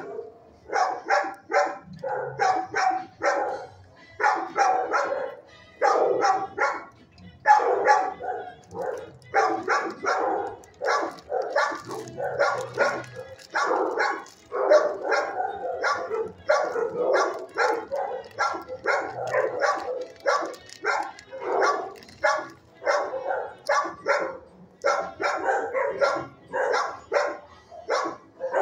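Many shelter dogs in neighbouring kennels barking nonstop, a dense string of barks a few per second with hardly a pause.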